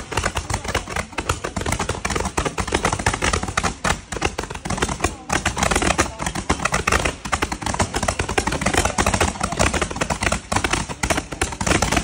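Several handheld multi-shot firework tubes firing at once, a dense, rapid, unbroken stream of pops and crackles.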